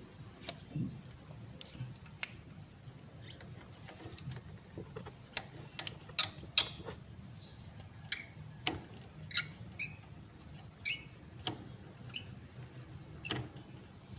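Hand tools and a rubber hose clamp being worked loose on an engine: a string of sharp metallic clicks and short squeaks at irregular intervals, busiest in the middle.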